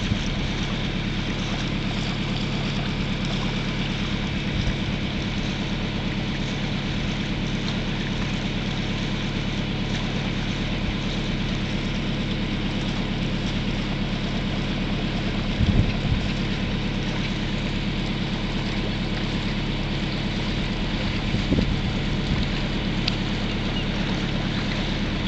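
Nelson 34 motor boat's inboard engine running steadily underway, a constant low hum with water and wind noise over it. Two brief low bumps come about two-thirds of the way through and near the end.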